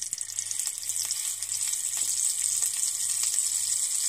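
A small lump of minced-meat stuffing sizzling steadily in hot oil in a nonstick frying pan, with a fine crackle, as a test fry to check the seasoning.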